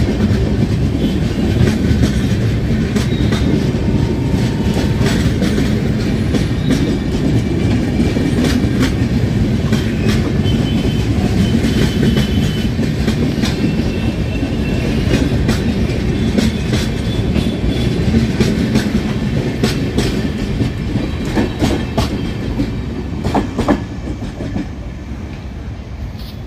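Passenger coaches of an express train rolling past, wheels clattering over rail joints with many sharp clicks. The sound fades near the end as the last coach passes and draws away.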